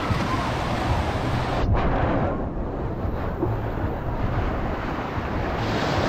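Wind noise on the microphone over the wash of small waves breaking onto the sand.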